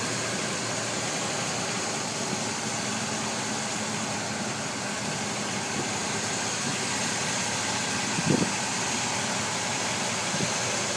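1975 Chevrolet K5 Blazer's stock 350 four-barrel V8 idling steadily and smoothly, heard from the open engine bay. A short thump about eight seconds in, and a fainter one near the end.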